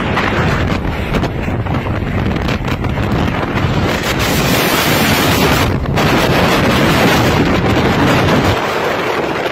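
Violent wind gust blasting the microphone: loud, continuous rushing wind noise, its deep rumble dropping away near the end.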